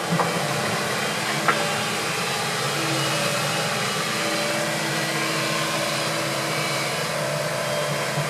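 Hitachi compact excavator's diesel engine running steadily while the boom and bucket are worked, with a single sharp knock about a second and a half in.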